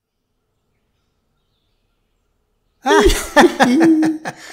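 Nearly three seconds of dead silence, then a voice makes a quick run of short vocal sounds with falling pitch and no clear words, fading out near the end.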